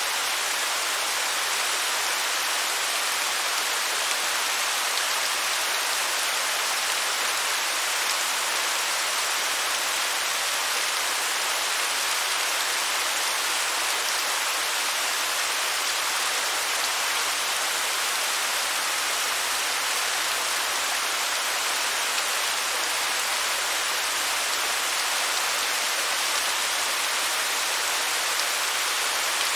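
Waterfall: a steady rushing of falling water, an even hiss with little low rumble.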